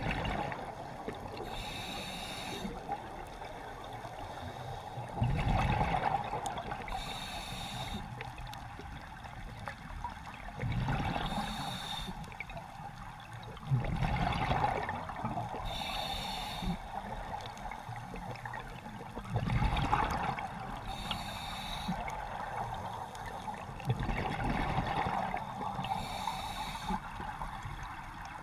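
Scuba diver breathing through a regulator underwater: a hissing inhale about every four to five seconds, each followed by a low rush of exhaled bubbles, about six breaths in all.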